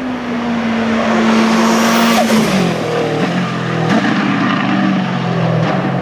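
Hill-climb race car engine at high revs, approaching at speed and passing. Its pitch drops sharply as it goes by about two seconds in, then it pulls away up the course.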